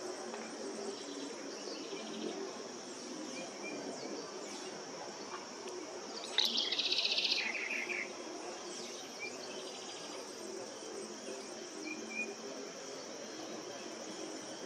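Steady high-pitched insect chorus. About six and a half seconds in, a bird gives one loud, fast rattling call lasting about a second and a half, dropping to a lower pitch partway through. A few faint short chirps are scattered through.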